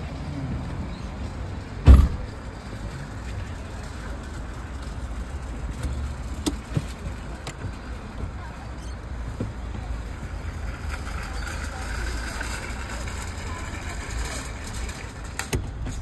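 Steady low rumble of a car, heard from inside the cabin, with one sharp knock about two seconds in and a few lighter clicks later.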